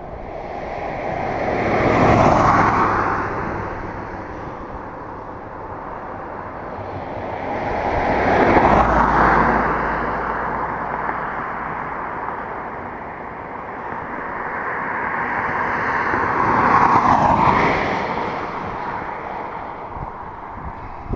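Three vehicles passing by on the road one after another, each a swell of tyre and engine noise that rises and fades, about two, nine and seventeen seconds in.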